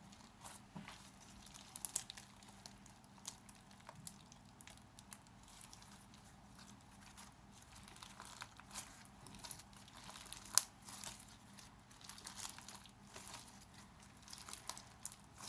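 Red slime with large snow-flake bits being squished and stretched by hand, giving a faint run of small crackles and soft crunches, with one sharper pop about ten seconds in.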